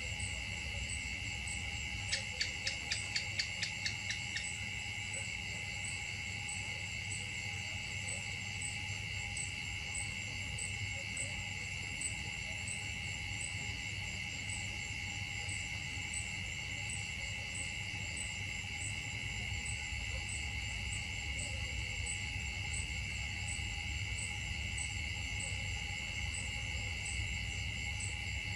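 Steady insect chorus in the forest: unbroken high buzzing tones with a faint, even ticking above them. About two seconds in, a quick run of about nine sharp chirps rises over it.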